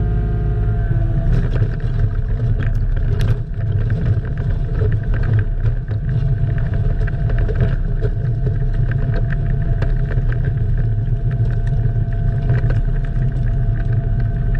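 Excavator's diesel engine running steadily: a deep, even rumble with a faint steady whine above it and a few light clicks in the first few seconds.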